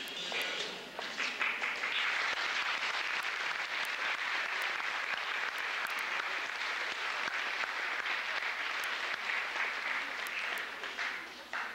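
Crowd applauding steadily, dying away near the end.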